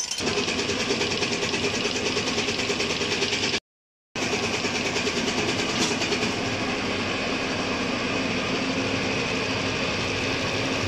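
Diesel injection pump test bench running a rebuilt Zexel six-cylinder inline pump: a steady mechanical run with a fast, even pulsing chatter, while the pump's fuel delivery is being set. The sound cuts out for half a second just before the middle.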